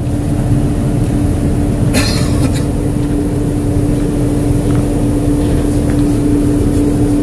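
Johnston mechanical street sweeper at work: its machinery runs with a steady drone, a low rumble and a constant hum, heard from inside the cab. A short rasping burst comes about two seconds in.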